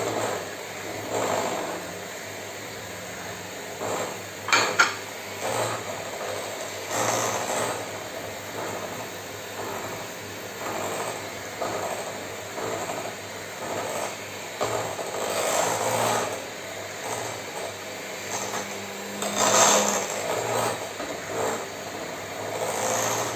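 Bosch electric hand mixer running, its beaters whisking cake batter and scraping against a glass bowl in uneven swells, with a couple of sharp knocks of the beaters on the bowl about four and a half seconds in.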